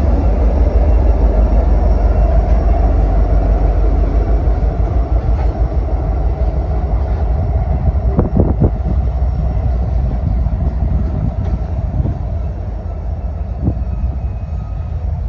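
Freight train passing close by. The Union Pacific SD70ACe's 16-cylinder EMD diesel engine runs past at the start over a heavy low rumble. The rumble then eases as covered hopper cars roll by, their wheels clicking over the rail joints several times about eight seconds in and again near the end.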